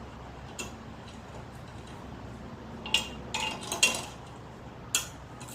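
SK ratcheting wrench clicking and clinking on metal as a sprocket bolt on a Ryan aerator is tightened: about five sharp, irregular clicks, a cluster of them in the middle.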